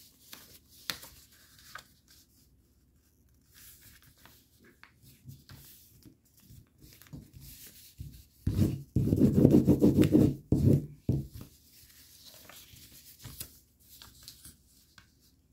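Sheet of printer paper being folded and creased by hand on a tabletop into an origami waterbomb base: light rustling and rubbing. About halfway through, a louder low rumble lasts a couple of seconds.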